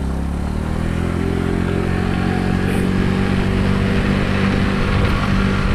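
Engine of the vehicle being ridden pulling away and accelerating, its pitch rising steadily, over a steady rush of road noise.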